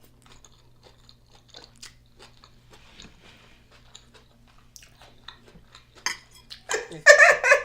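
Close-miked chewing of beef liver, vegetables and rice: soft wet mouth clicks and smacks, with a louder burst of sound about a second before the end.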